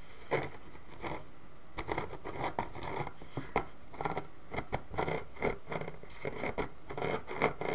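Irregular clicks, rattles and scrapes of an electric fan's plastic housing and wire guard being handled and shifted on a workbench.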